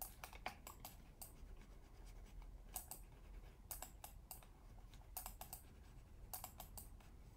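Faint clicking at a computer keyboard, in short clusters of a few clicks about every second.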